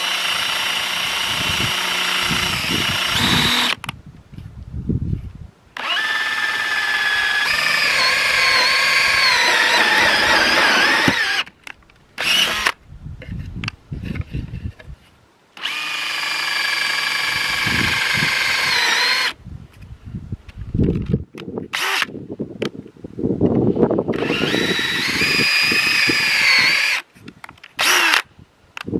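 Cordless drill spinning a titanium-coated HSS step drill bit through laminate board, in four runs of a few seconds each with short quick blips of the trigger between them. The motor's whine wavers in pitch as the bit cuts.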